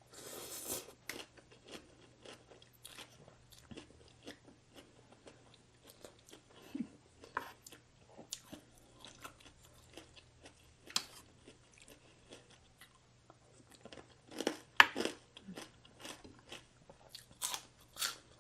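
A person biting and chewing crunchy food in many short, irregular crunches, with a louder bite about fifteen seconds in.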